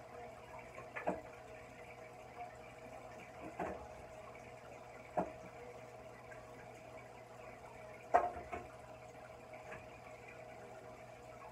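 Aquarium filter trickling and splashing water into the tank surface, a low steady bubbling with four louder plops, the loudest about eight seconds in.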